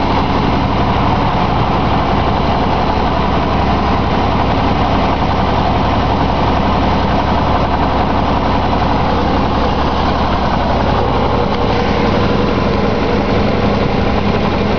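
1916 Hudson's six-cylinder engine running steadily as the car drives along, the engine sound mixed with an even noise of the car under way.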